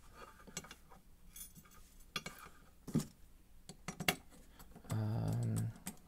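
Scattered light metallic clicks and clinks as lock pins, springs and a small tool touch a brass lock cylinder and a brass pinning tray. About five seconds in comes a brief low hum.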